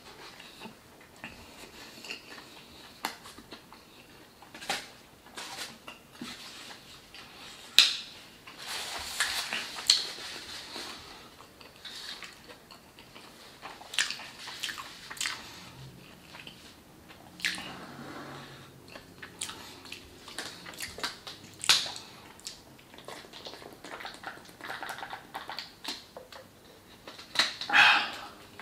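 A person chewing and smacking on food close to the microphone: wet mouth clicks and smacks at an uneven pace, with a few louder smacks, one near the end.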